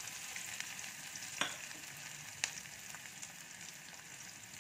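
Chopped onions sizzling in hot oil with cumin and carom seeds in a kadhai, a steady frying hiss. Two sharp ticks stand out, about a second and a half and two and a half seconds in.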